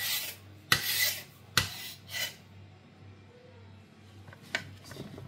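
A knife blade scraping through rolled paratha dough against the stone counter as it cuts strips, four quick strokes in the first two and a half seconds, then a couple of light taps near the end.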